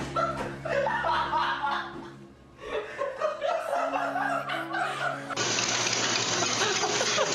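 Background music with held notes and people laughing, then from about five seconds in a steady rushing noise of a treadmill belt running under a dog's paws.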